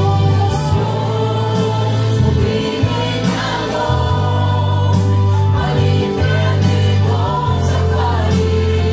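A man and two women singing a Russian Christian worship song together into microphones, over musical accompaniment with long held bass notes.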